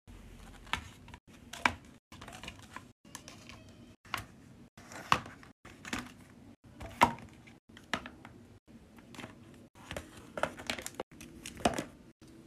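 Cleaning-product containers, powdered-cleanser canisters among them, being set down and shuffled into a plastic basket. About a dozen irregular knocks and taps come with light rustling between them.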